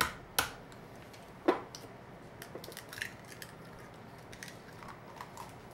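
A hen's egg being cracked by hand: a few sharp taps of the shell against a hard edge in the first second and a half, then light clicks and crackles as the shell is pulled apart over a small glass bowl.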